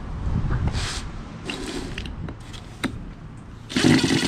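A few handling clicks and knocks on wood, then, near the end, a cordless drill/driver starts running with a steady motor hum, backing a screw out.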